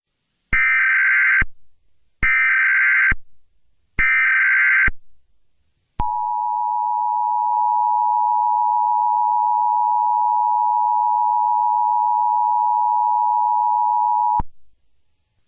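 Emergency Alert System tones: three short bursts of SAME header data screech, each just under a second long and a second or so apart, then the two-tone attention signal comes in and holds steady for about eight seconds before cutting off abruptly.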